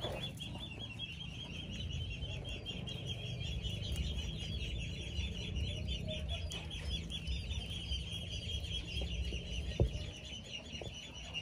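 Many chicks peeping in a continuous high-pitched chatter, with a low rumble underneath and a couple of sharp knocks near the end.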